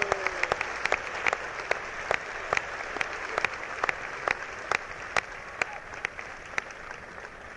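Audience applauding, with a few close, sharp individual claps standing out from the crowd's clapping; the applause slowly dies down.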